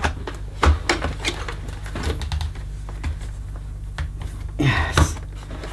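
Irregular plastic clicks and taps as the ribbed hose of a Dyson DC11 canister vacuum is handled, wrapped around the machine's body and pressed into its clips. A short spoken "yes" comes near the end.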